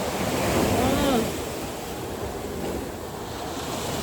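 Surf breaking on a beach: a steady rushing wash that swells about a second in, with wind buffeting the microphone. A brief voice sound is heard about a second in.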